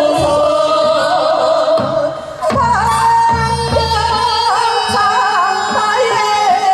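Women singing a Korean traditional folk song into microphones, a held, sliding melody with vibrato, over a backing accompaniment with a steady low beat. After a short dip about two and a half seconds in, a single woman carries the next phrase alone.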